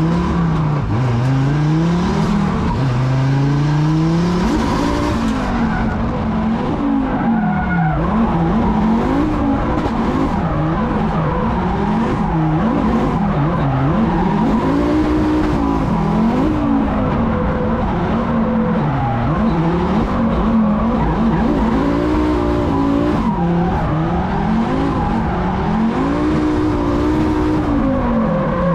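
Drift-built BMW E36 with a turbocharged Volvo engine swap, heard from inside the cabin, its engine note rising and falling over and over as the throttle is worked through the slides. Tyres squeal throughout.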